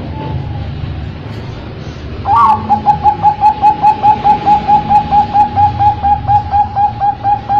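Zebra dove (a Bangkok-bred perkutut) cooing: a faint note near the start, then from about two seconds in a fast, even run of short cooing notes, about five a second.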